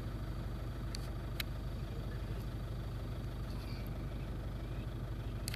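Steady low engine hum, with a few faint clicks about a second in.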